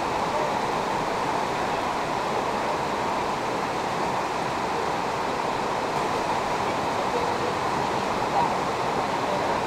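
Fast-flowing floodwater rushing past, a steady, even noise.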